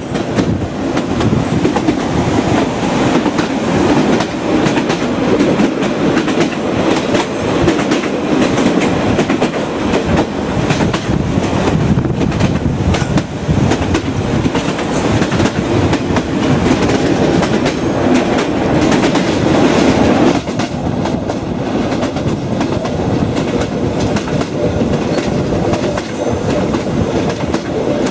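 Reunification Express passenger train running, its wheels clattering steadily over the rails; the noise drops slightly about twenty seconds in.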